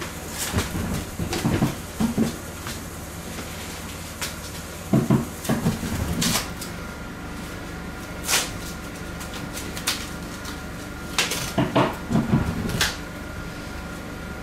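Bursts of dull knocks and thumps, several in quick succession, come three times over, with a few single sharp clicks between them, over a steady low hum.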